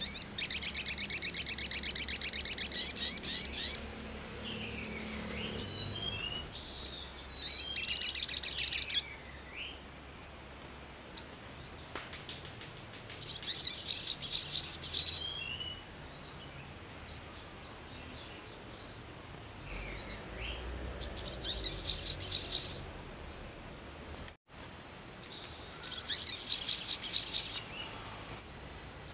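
Male olive-backed sunbird singing: five rapid, high-pitched trilled phrases of about two to three seconds each, with short chirps between them.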